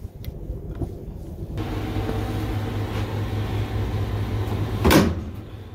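Steady electrical hum from a motor-control panel, then one loud clack about five seconds in as the disconnect switch handle is thrown to turn the conveyor's power on.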